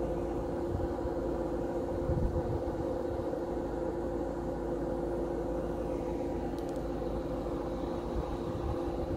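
A steady machine-like hum with a low, uneven rumble, the kind that wind buffeting a phone microphone makes outdoors.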